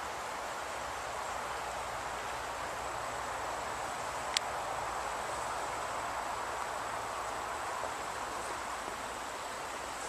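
Steady rush of river water flowing, with a faint high steady whine above it and one sharp click about four seconds in.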